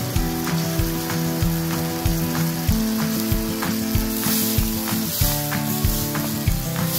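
Fried chicken pieces sizzling in lemon sauce in a wok, stirred and tossed with wooden spatulas, over background music with held notes and a steady beat.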